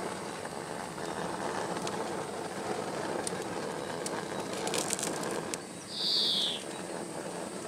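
Gas grill burners running on full, a steady rush of gas flame with a few sharp clicks about four to five seconds in. The rush stops suddenly before six seconds, and a short high-pitched sound, the loudest thing here, follows just after.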